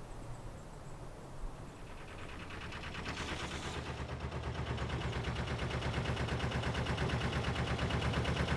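Narrowboat diesel engine running at low revs, a fast even chugging that starts about three seconds in and grows louder as the boat moves into the lock.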